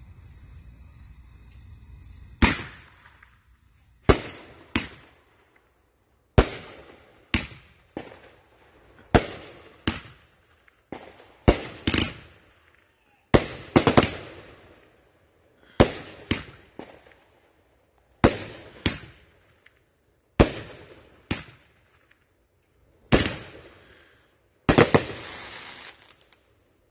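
A 16-shot, 500-gram consumer fireworks cake firing its shots: a run of sharp bangs, often in close pairs, a second or two apart. Near the end, the last burst is a longer, denser volley lasting about a second and a half.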